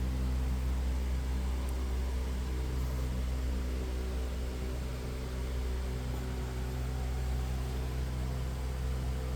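Steady low electrical hum with a faint even hiss, like an appliance or fan running, holding unchanged throughout.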